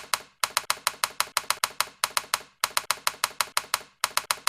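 Rapid typing: sharp, evenly spaced key clacks, about seven a second, in runs broken by short pauses.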